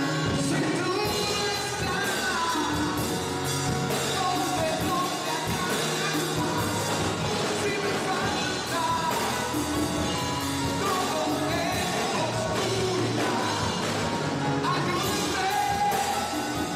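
A live band of drum kit, congas and keyboards playing a Christian worship song, with a man singing over it through a microphone and PA.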